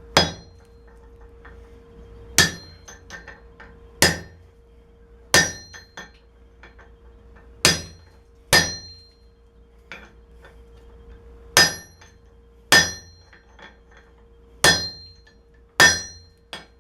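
Hammer blows on an anvil, cutting through the top of a steel wrench that is still hard to get through: about eleven heavy, ringing strikes one to two seconds apart, with lighter taps between them.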